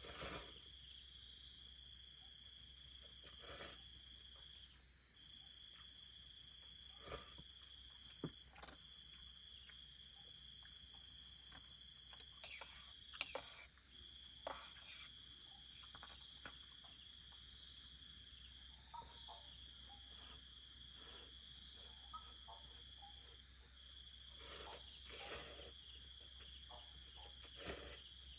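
Insects chirring steadily in a high pitch, one trill pausing briefly every few seconds, with a few faint clicks and taps.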